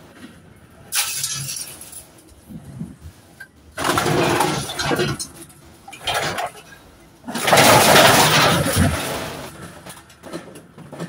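Scrap metal clanking and scraping as tubular metal frames are pulled out of a van's load bay and dropped onto a pile, in several loud bursts, the longest and loudest about three-quarters of the way through.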